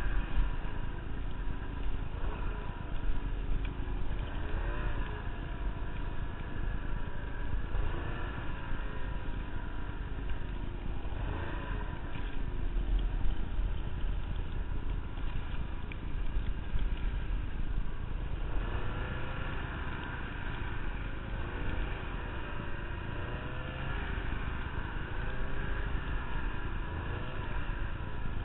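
Ski-Doo snowmobile engine running under load while ploughing through deep powder, its pitch rising and falling again and again as the throttle is worked, over a steady low rumble.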